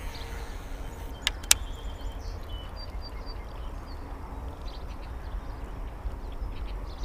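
Wind rumbling on the microphone, with two sharp clicks about a second and a half in as the baitcasting reel is worked at the start of a retrieve, and a few faint bird chirps.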